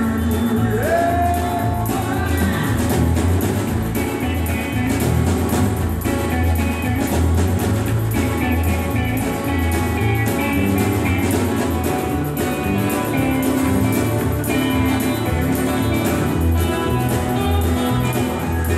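Live country band playing, with acoustic guitars and a fiddle, and a man singing.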